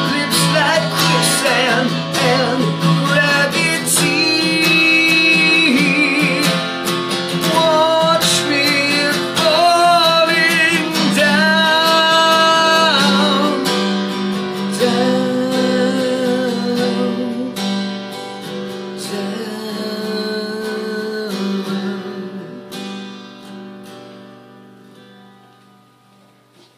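A man singing live, accompanying himself on a strummed steel-string acoustic guitar. The song winds down in the last few seconds, the final chord ringing out and fading.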